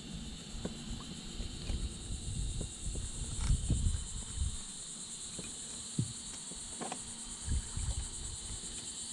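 A steady, high insect chorus, with soft water splashes and sloshing every second or so as a black drum is held by a lip-grip in the water beside a kayak.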